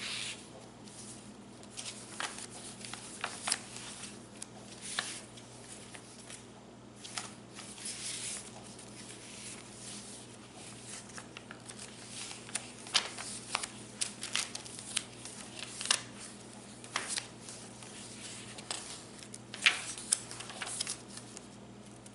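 Paper and card pages of a handmade junk journal rustling and flapping as it is leafed through and its flaps and tags handled, with scattered sharp taps and clicks.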